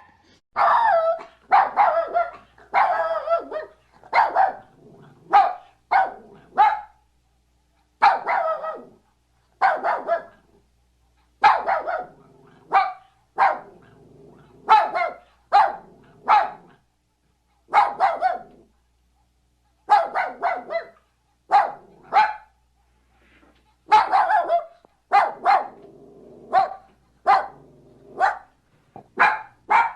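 Puppy barking repeatedly: short barks, some in quick runs of two or three, with brief pauses between them, and a few longer drawn-out calls near the start.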